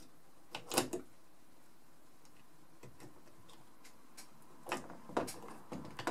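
A few light clicks and taps of small metal parts being handled in an open airsoft gearbox: two near the start, then a short cluster near the end.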